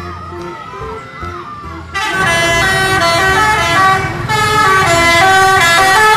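A bus's multi-tone 'telolet' air horn sounds a short stepping tune, coming in loudly about two seconds in and playing on, after a quieter stretch of sliding tones.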